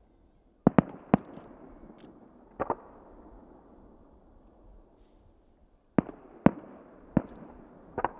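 Aerial firework shells bursting with sharp bangs, each trailing off in a rolling echo: three close together about a second in, a quick double bang soon after, then a run of four more bursts in the second half.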